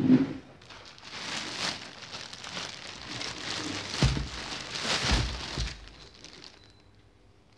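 Plastic courier mailer bags crinkling and rustling as a parcel is handled and turned over, with a couple of dull thumps about four and five seconds in. The rustling dies away near the end.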